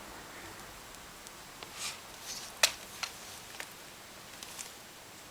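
A few short clicks and scuffs over a faint steady background, the sharpest and loudest about two and a half seconds in.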